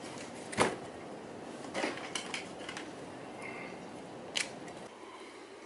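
Clicks and light taps of small metal parts as a rotary tool, not running, is handled and fitted with a cutoff wheel in its collet: a sharp click about half a second in, a few lighter ticks around two seconds in, and another click about four seconds in.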